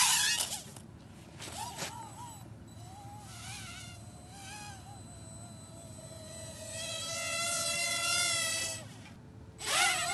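Micro quadcopter's V959 motors and propellers buzzing in a high whine, the pitch swinging up and down with the throttle as it flies aerobatics. The whine is loud right at the start and again near the end as the quadcopter passes close to the microphone, with a steadier, slowly rising whine before that.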